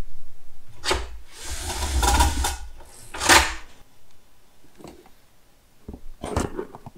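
Cardboard box being handled: its top flaps folded shut and a strip of wetted kraft paper tape smoothed down over the seam. A few short scraping rustles in the first half, then only faint touches near the end.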